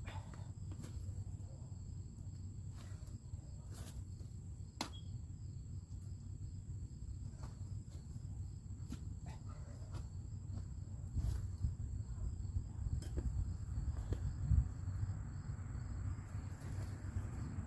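Insects trilling steadily at a high pitch over a low rumble, with a few faint clicks scattered through; the rumble grows louder about two-thirds of the way in.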